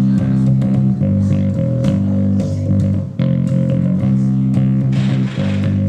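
Electric bass guitar played through a PA in a sound check: held, sustained notes with a short break about three seconds in, the signal already distorting.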